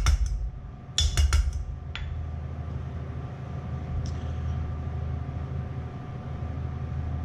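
Small stainless steel cup tapped in quick runs of metallic clinks against the rim of a stainless steel mixing bowl to knock out chopped chives, at the start and again about a second in. A single click follows as the cup is set down, over a low steady hum.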